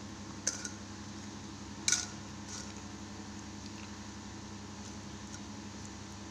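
A hand rubbing wet spice paste into small whole fish in a steel bowl: two brief wet clicks, about half a second and two seconds in, the second louder, over a steady low hum.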